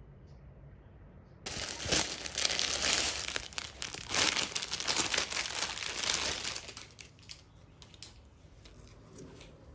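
Packaging crinkling and tearing, starting suddenly about a second and a half in and dying away about five seconds later.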